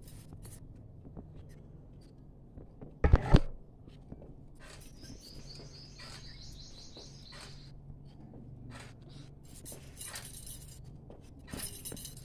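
A loud knock about three seconds in, then a small bird chirping a rapid run of high notes for about three seconds, over a low steady hum and scattered light clicks.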